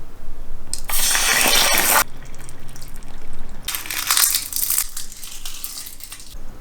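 Dry crunching and crackling in two bursts of about a second each, the first the louder.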